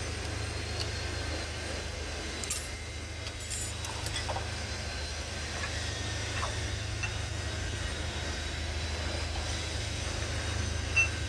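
Metal gearbox parts and hand tools clinking a few times, sharpest about two and a half seconds in, over a steady low hum.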